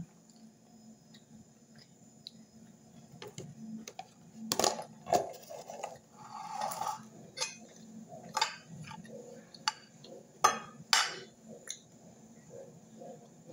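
Metal fork and spoon clinking and scraping against a plate while pulling apart roast chicken: scattered sharp clicks and short scrapes, busiest from a few seconds in until near the end.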